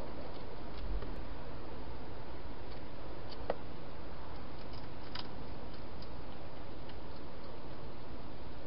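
Steady hiss with scattered faint clicks and ticks of a hedgehog eating from a bowl inside a plastic feeding box, with one sharper click about three and a half seconds in.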